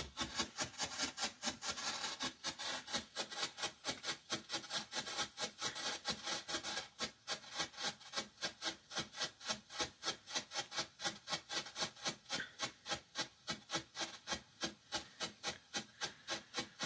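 A 90-second strobe firework burning, giving a sharp crackling pop with each flash at a steady rate of about five a second.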